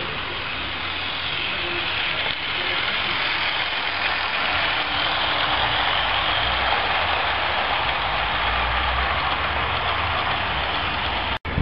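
Garden-scale model train's wheels rolling along the track as the coaches pass close, a steady rolling hiss that swells as they go by. There is a brief dropout near the end.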